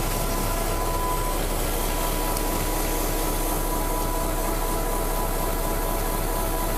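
CSX diesel locomotives running close by as they move slowly through the yard: a steady engine rumble with a thin, constant whine over it.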